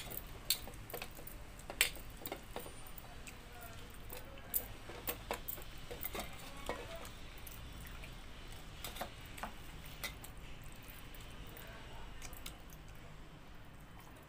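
Eating by hand from a steel plate: irregular light clicks and scrapes of fingers gathering rice against the metal, with chewing, busier in the first half.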